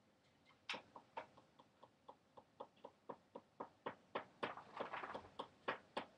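A faint, steady series of light clicks, about five a second, starting under a second in and getting louder in the second half.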